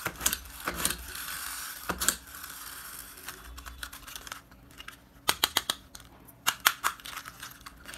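A toy racing car handled in the hands: scattered light clicks and rattles of its parts, with a quick run of sharp clicks about five seconds in and another near seven seconds.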